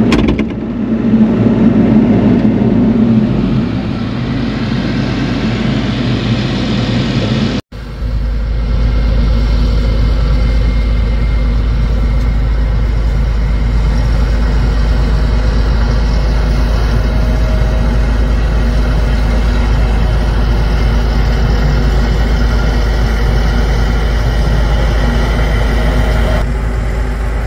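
Heavy engine running steadily. It breaks off abruptly about eight seconds in and resumes as a steady, deep drone.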